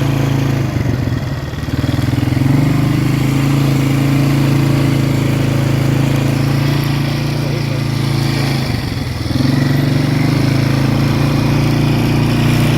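Polaris 4x4 ATV engine running steadily under throttle, dipping briefly in speed and loudness twice, about a second in and again around nine seconds, before picking back up.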